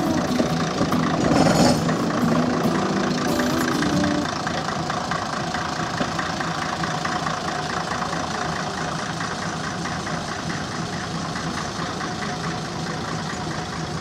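Diesel engine of the Fuji Heavy Industries-built Nanbu Jūkan Railway rail bus KiHa 101 running, louder with a pitched hum for about the first four seconds and then settling to a steady idle. A short burst of noise comes about a second and a half in.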